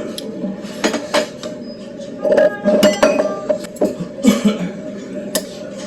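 Metal spoon and chopsticks clinking and tapping against a soup bowl while eating: a scatter of sharp clinks, busiest in the middle, some with a short ring.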